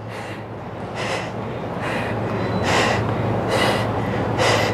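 A woman breathing hard from exertion: sharp, rhythmic exhales a little under once a second, getting louder as they go.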